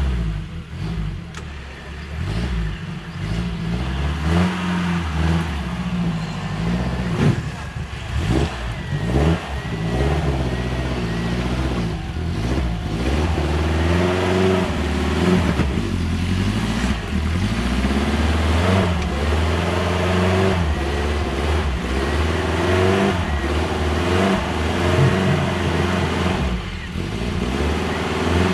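Off-road 4x4 vehicle's engine running under load and being revved, its pitch climbing and dropping again and again.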